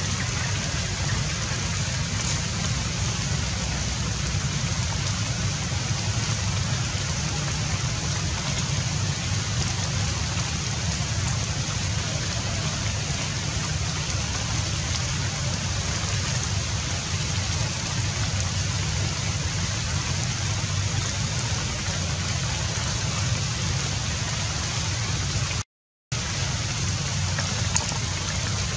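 Steady, even hiss of water, like rain or a rushing stream, with a brief total dropout near the end.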